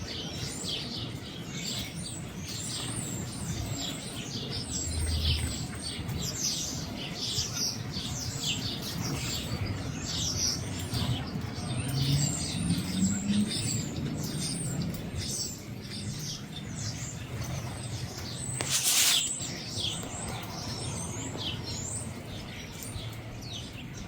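Small songbirds at backyard feeders chirping continually, many short high chirps overlapping. Late on, a brief rush of noise stands out above them.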